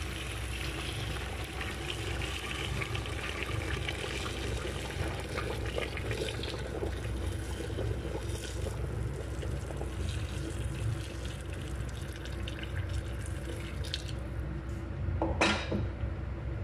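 Hot water pouring steadily into a stainless steel pot of browned chicken pieces, the pot filling. A short louder sound about a second before the end.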